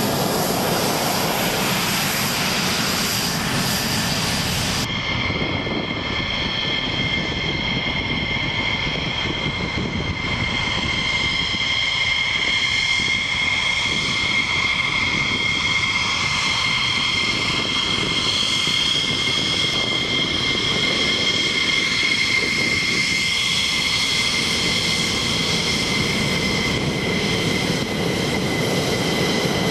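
Fighter-jet turbofan engines running as the aircraft roll along the runway, a steady roar with a high turbine whine: a Greek F-16 until an abrupt cut about five seconds in, then a twin-engine F-15E Strike Eagle.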